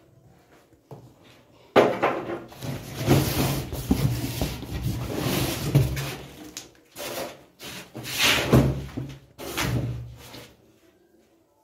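A plastic-wrapped air cooler being pulled up out of its cardboard carton: cardboard and plastic scraping and rubbing in several noisy bursts, with a sudden knock about two seconds in. The sounds die away about a second before the end.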